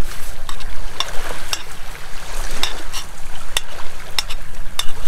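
Hot dogs and freshly added water sizzling in a hot stainless steel frying pan over a wood fire, with irregular sharp pops and crackles over a steady hiss.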